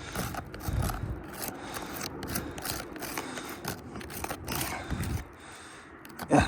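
Asphalt shingles being lifted and handled, a quick run of scraping and crackling clicks that eases off about five seconds in.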